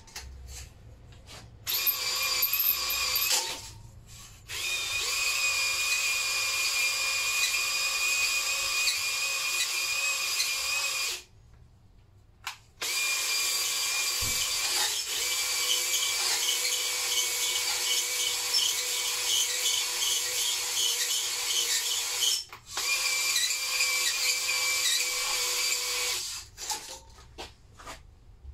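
Cordless drill whining steadily as it spins a cylinder hone inside a Lister D engine's cylinder bore, taking the roughness off the bore. It runs in several long stretches with short stops between.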